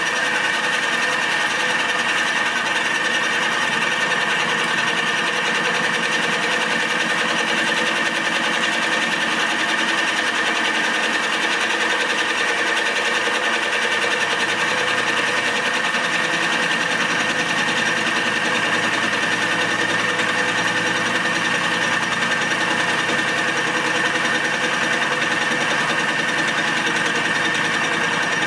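Milling machine with its cutter running steadily across an aluminium part under feed, making a constant machining sound with several steady tones. The cutter is touching lightly on the back of its pass as well as the front.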